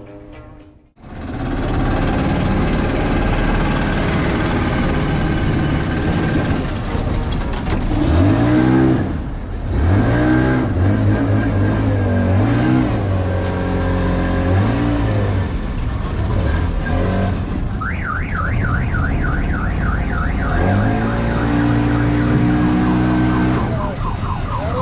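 Motorboat engine running steadily, with low voices coming and going over it. About 18 seconds in there is a brief fast warbling electronic tone, like an alarm.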